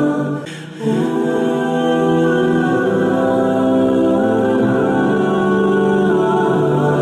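Background music with long held notes and chords, briefly dipping in level about half a second in.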